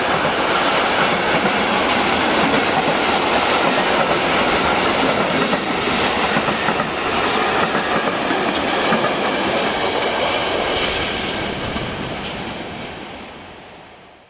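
Covered freight wagons of a long goods train rolling past: a steady rumble of wheels on rail with a rhythmic clickety-clack over the rail joints. The sound dies away over the last two seconds.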